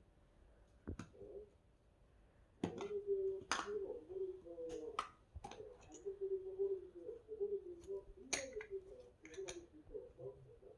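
Plastic toy building blocks clicking and clacking as they are handled and snapped together: a string of sharp, irregular clicks.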